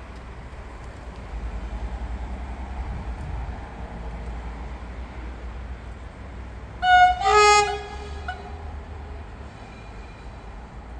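Electric locomotive EA 613 and its passenger train running with a steady low rumble. About seven seconds in, the locomotive's horn sounds two quick blasts, the loudest thing heard.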